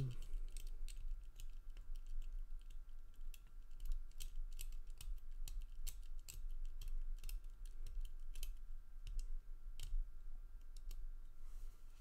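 Number wheels of a cutaway Master Lock M176 four-digit combination padlock being rolled by thumb toward the right combination: a long run of small, irregular clicks.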